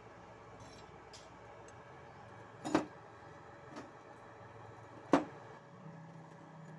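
Two sharp metallic knocks about two and a half seconds apart, with a fainter one between them: the tack-welded steel pieces being handled and set against the work table.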